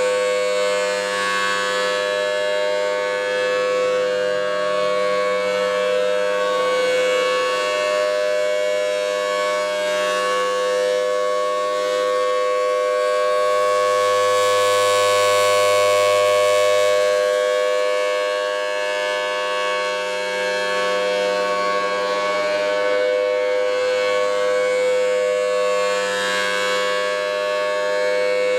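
Federal Signal Thunderbolt 1000T civil defense siren sounding a steady, unwavering tone for a tornado warning test. It swells louder about halfway through, then falls back.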